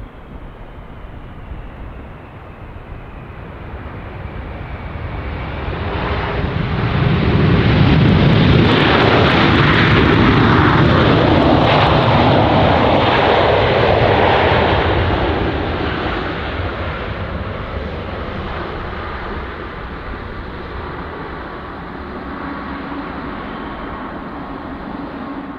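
Boeing freighter's jet engines passing on landing approach: a rumble and whine that builds, peaks about a third of the way in, then fades slowly.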